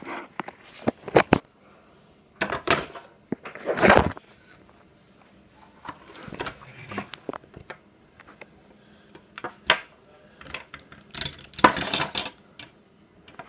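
Hard plastic toy figures knocking and clattering against each other and the tabletop as they are handled: a series of separate clicks and knocks, with louder clusters of clatter about four seconds in and near the end.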